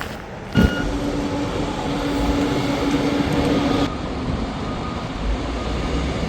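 Motor vehicle running with a steady engine hum, coming in suddenly about half a second in and easing off about four seconds in. Faint short beeps, like a reversing alarm, sound now and then in the second half.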